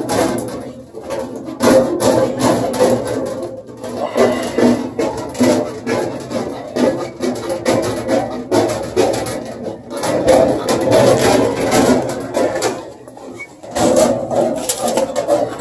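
Hand tin snips cutting through the sheet-metal base of a furnace to open the hole for a filter boot: a run of sharp clicking bites with a pitched, ringing squeal from the metal, pausing briefly twice.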